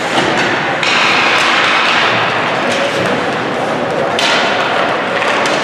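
Youth ice hockey game in a rink: sharp knocks and thuds of sticks and puck, a few times, over a steady noisy din with voices.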